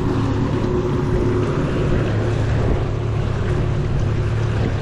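Boat's outboard motor running steadily at trolling speed, a low even hum, with water and wind noise.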